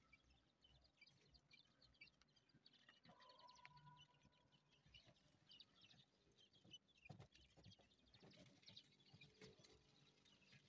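Faint, scattered peeping of young quail chicks, with a few soft ticks.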